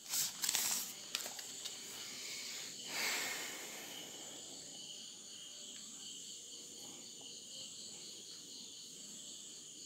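Steady high chirring of crickets with a fast, regular pulsing note. Short rustling handling noises from the phone and its wrapping come in the first second, with another brief rustle about three seconds in.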